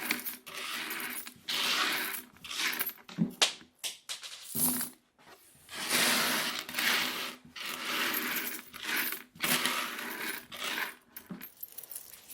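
Loose metal coins being sorted by hand: handfuls jingling and clinking against each other in repeated bursts, with short pauses between, and a brief lull about four seconds in.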